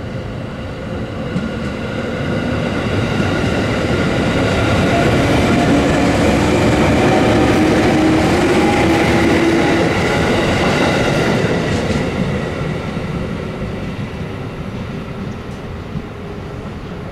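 A JR 117-series electric multiple unit pulls away from a station and runs past close by. Its DC traction motors and gears hum, climbing slightly in pitch as it gathers speed, over the running noise of its wheels on the rails. The sound builds to a peak about eight seconds in, then fades as the train draws away.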